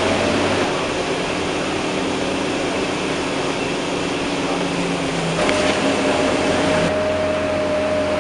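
Interior cabin noise of a Scania K230UB single-deck bus: a steady hum from the Scania DC9 diesel engine with the air-conditioning blowing. A higher steady whine joins about five seconds in.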